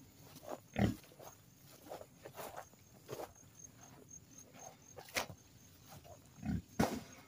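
Pigs grunting now and then in short, scattered grunts, with a few sharp knocks.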